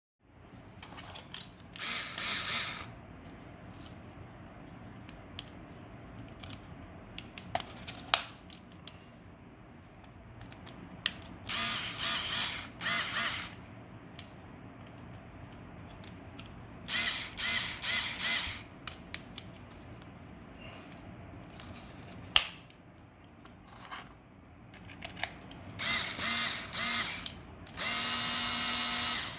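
COMS cordless mini electric drill running in short bursts of about a second, switched on and off again and again, with a high whine. Sharp clicks and handling knocks in between.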